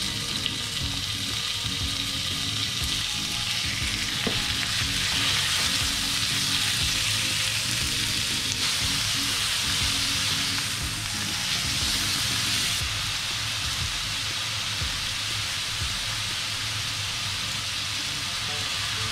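Thin slices of pork sizzling in a hot frying pan. The hiss grows louder a few seconds in as more slices go into the pan, and there are small taps of chopsticks turning the meat.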